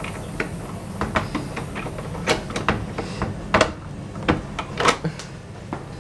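Handling noise: irregular sharp clicks and knocks, about a dozen and loudest in the middle, over a steady low hum.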